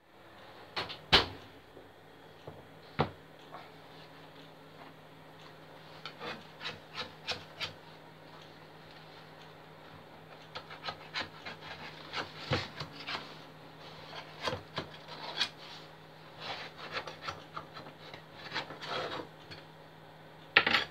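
A metal loaf tin knocks sharply on a wooden chopping board twice, about a second in and again at three seconds. From about six seconds a knife scrapes and clicks in many short strokes along the inside edge of the tin, loosening a freshly baked banana cake.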